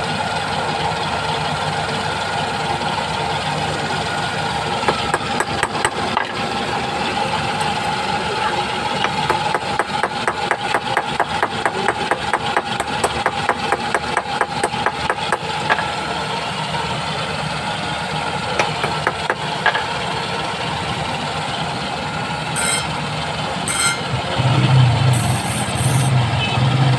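A large disc grinding machine's motor runs with a steady hum. From about five seconds in until about sixteen, a small hammer taps a steel scissor blade on a metal block, several light strikes a second. Near the end, a scissor blade is pressed against the spinning grinding wheel, adding a louder, lower drone of steel being ground.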